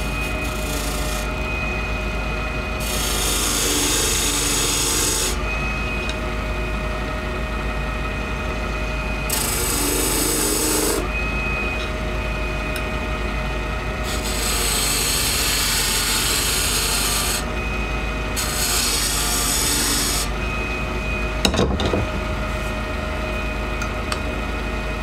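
Benchtop lathe motor running with a steady whine while a hand-held turning gouge cuts the spinning cast-acrylic blank. The cutting is a scraping hiss that comes and goes every few seconds as the tool is pressed to the work and eased off. There is one sharp knock a little past the middle.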